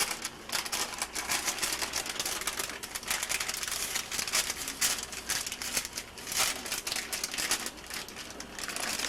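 Wax paper crinkling and rustling in quick, uneven crackles as it is handled while the dough pastries are shaped on it.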